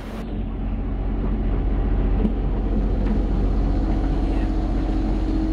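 A boat's inboard engine running steadily, a low hum with a regular pulse, heard from inside the enclosed cockpit.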